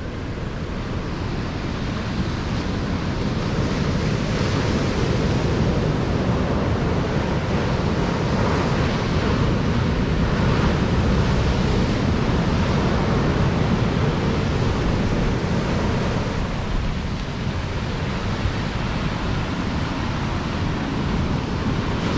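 Ocean surf breaking and washing up a sandy beach in a steady rush.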